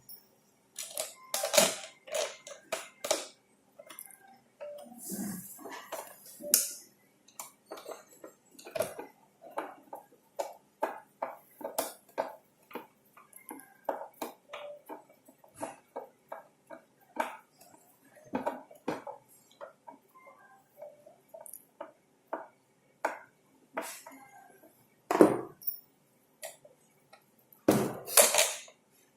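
Irregular metallic clicks, clinks and taps from handling the parts of a hotel door lock, with a few louder knocks scattered through.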